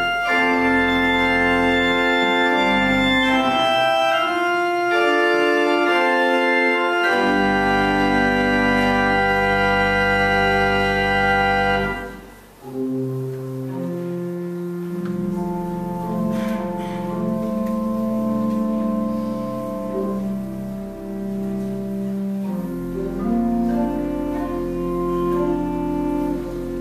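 Church pipe organ playing slow, sustained chords over a deep pedal bass. A loud, full passage ends about twelve seconds in, and after a brief lull the organ goes on with a softer, quieter passage.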